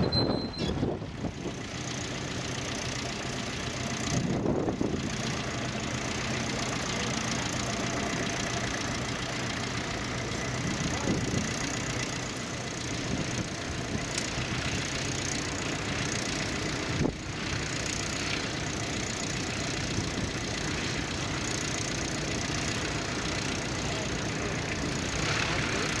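Tractor engine running steadily under load, pulling a plough through the ground, with one sharp click about two-thirds of the way through.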